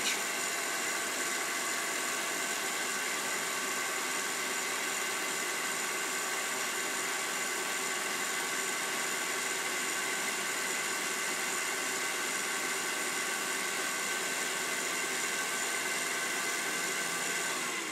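Harbor Freight 7x10 mini lathe running forward at a raised speed, its motor and gear train whining steadily while the change gears turn the lead screw and the carriage feeds along the bed under power.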